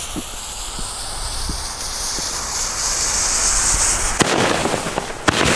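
Klasek 'No Sound' bomb tubes hissing as their fuses burn, then a few sharp pops from about four seconds in as the tubes fire. The effects are sold as quiet, animal-friendly ones.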